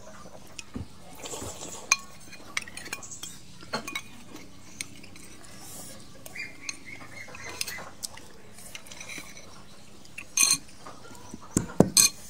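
Spoon clinking against a bowl in irregular light taps, with a louder cluster of clinks near the end.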